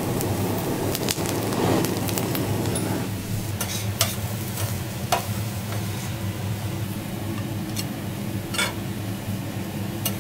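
A cooking torch's flame rushing over crab legs on a steel teppanyaki griddle for the first few seconds, then fading. Metal spatulas then click and scrape on the griddle a few times over a steady low hum.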